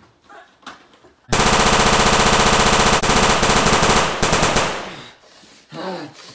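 A loud, rapid burst of automatic gunfire starting about a second in and lasting about three seconds, trailing off into a few scattered shots.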